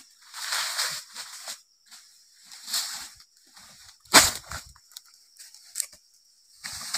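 Dry oil palm fronds rustling and crackling in several short bursts, with one sharp knock about four seconds in.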